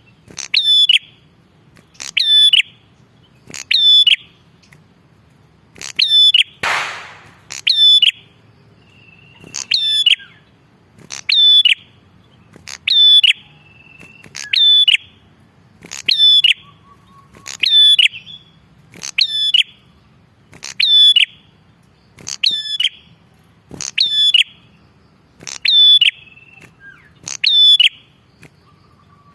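Red-headed prenjak (a tailorbird) repeating one loud, sharp call over and over, about one call every second and a half to two seconds. A single harsh, noisy burst about seven seconds in.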